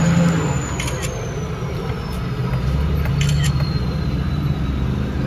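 Vehicle engine and tyre noise heard from inside the cabin while driving slowly. The low engine note drops about half a second in and picks up again about three seconds in, with a few faint clicks.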